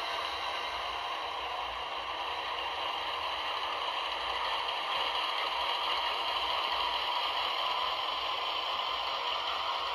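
Two coupled HO-narrow-gauge Grandt Line 23-ton GE boxcab model locomotives running along the track at speed: their small gear motors and bevel-gear drives give a steady whir.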